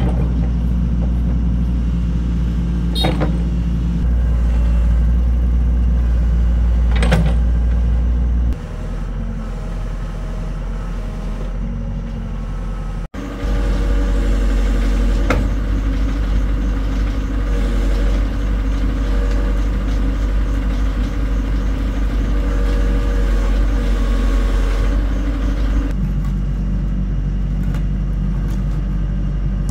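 Crawler excavator's diesel engine running steadily with a deep drone, with a few sharp clanks over it. The drone drops in level about eight seconds in and comes back stronger about thirteen seconds in.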